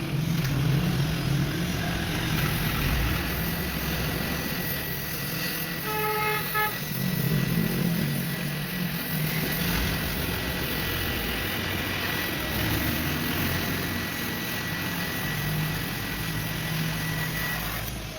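Honda CD 70 motorcycle's single-cylinder engine running through its repaired silencer, with small rises and falls in revs. A short horn toot sounds about six seconds in.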